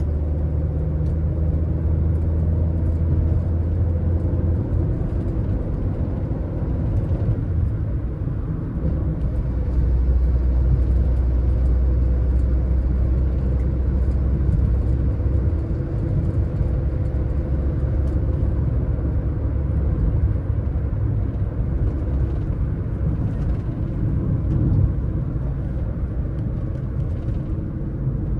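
Car driving along a road: a steady low rumble of engine and tyre noise, with the engine's hum shifting in pitch a few times.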